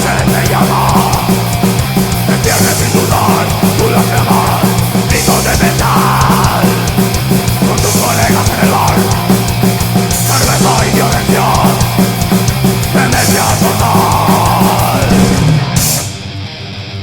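Loud heavy rock music from a full band playing hard, with a steady drum beat. About a second before the end it drops to a quieter, thinner passage.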